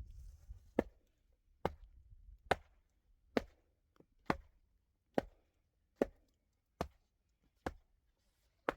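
Steady chopping strokes, a little under one a second, about ten sharp knocks in a row.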